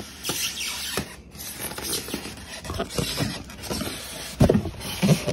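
Styrofoam packing insert squeaking and scraping against a cardboard box as it is worked loose and pulled out, with two heavier thumps near the end.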